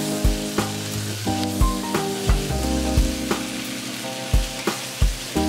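Shrimp and vegetables sizzling in a hot oiled wok as they are stir-fried. A ladle knocks and scrapes against the pan in short strokes every half second or so.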